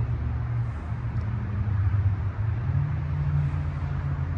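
A vehicle engine idling with a steady low hum, its pitch stepping slightly higher near three seconds in.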